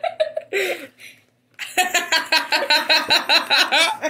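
Laughter: a brief voiced sound, then from about a second and a half in a run of quick, high-pitched ha-ha pulses, about seven a second.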